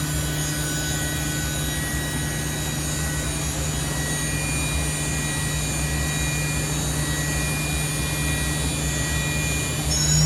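CNC vertical machining center running steadily during a warm-up, with a constant low hum and several high steady whine tones. Near the very end the whine starts to rise in pitch as the machine speeds up.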